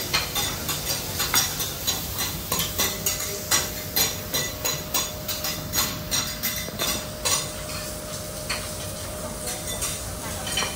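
Food sizzling on a teppanyaki griddle while metal spatulas strike and scrape the hot steel plate in a quick run of clacks, about three a second, thinning out for the last few seconds.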